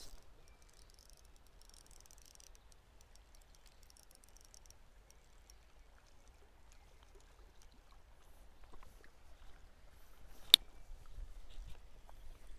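Spinning reel being cranked, a faint ticking and rustle, with one sharp click about ten and a half seconds in.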